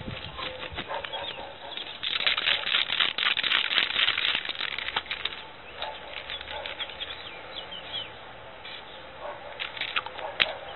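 Aerosol spray paint cans being picked out of a tightly packed group, knocking and rattling against one another in a dense clatter about two seconds in and again shortly before the end.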